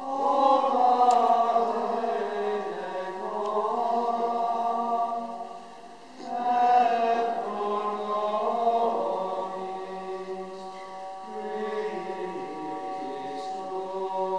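A male schola singing Latin chant in long sustained phrases, with a brief break between phrases about six seconds in.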